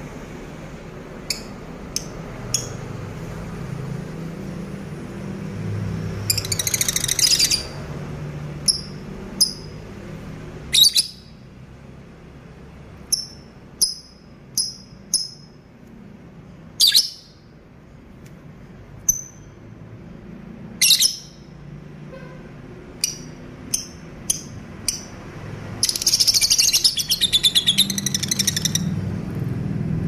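Caged lovebirds giving sharp, high-pitched, shrill single chirps scattered through, with two longer bursts of rapid chattering, one about six seconds in and one near the end.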